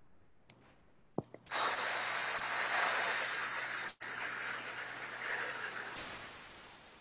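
A man forcefully exhaling through clenched teeth: a loud hiss like a snake, starting about a second and a half in. It breaks off for an instant around four seconds, then carries on, fading as his lungs empty. It is a wind player's breathing warm-up, blowing all the air out as fast as possible.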